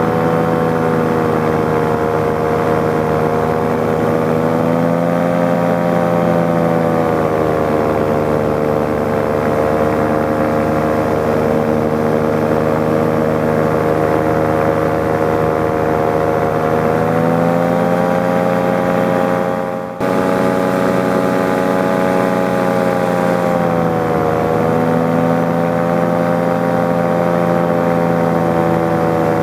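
A paramotor's engine and propeller running steadily in flight, the engine note rising and easing off a few times as the throttle changes.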